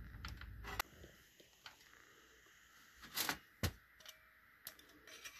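Hands handling small parts of a Raspberry Pi cooler and case: a low rustle of handling at first, a sharp click a little under a second in, a louder scuffle followed by a sharp click about three seconds in, then a few light ticks.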